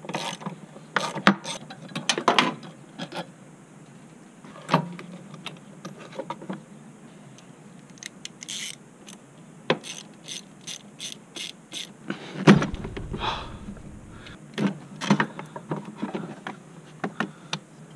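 Quarter-inch drive ratchet clicking in short runs as small bolts are loosened, among clicks and knocks of plastic intake parts and connectors being handled. A single loud thud about two-thirds of the way in.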